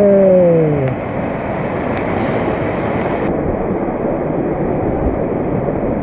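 A waterfall in full flow, a steady loud rush of falling water. In the first second a person's long call, falling in pitch, rises above it.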